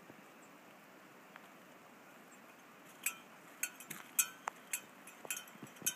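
A cowbell clanking irregularly as it is carried along, a handful of short metallic clinks with a brief ringing tone starting about three seconds in, over a faint steady background hiss.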